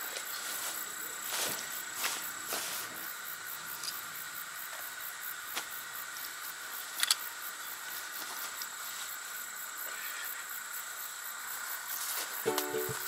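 Steady chorus of insects, a continuous high trill, with a few soft knocks and rustles as a backpack and camping gear are handled on grass. Plucked ukulele music comes in at the very end.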